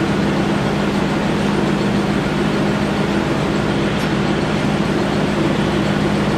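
Powder-coating spray booth running: a steady loud rush of air with a constant low hum, from the extraction fan and the powder gun's air.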